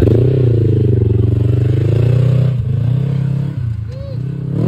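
Polaris RZR side-by-side's engine revving as it drives off on dirt, the pitch rising and falling, easing off twice and picking up again near the end.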